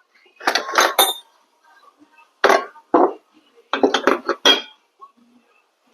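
Loose metal motorcycle parts and tools clinking and clanking as they are handled and set down, in four short clusters of knocks.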